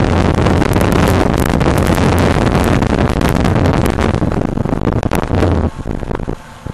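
Wind rushing over the microphone of a camera on a Yamaha R15 motorcycle riding at highway speed, with a steady low hum beneath. Near the end the rush drops away suddenly, leaving quieter ticking.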